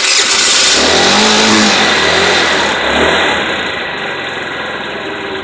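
Chinese scooter engine started and running loud, revved briefly in the first couple of seconds, then easing off and fading near the end. It runs with the gas cap removed, so the tank is vented and fuel flows freely.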